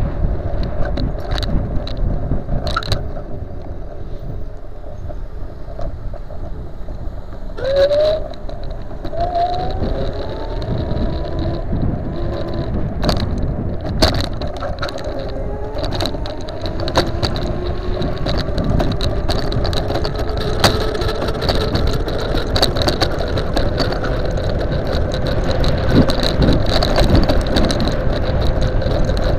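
Riding on a custom dual-motor 48 V electric scooter: wind buffets the microphone over a steady rumble of tyres on tarmac, with a faint motor whine that slowly rises in pitch as the scooter picks up speed, and scattered knocks from bumps in the road.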